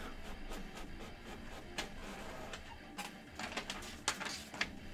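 Trading cards and their packaging handled on a tabletop: scattered short clicks and scuffs, closer together in the second half.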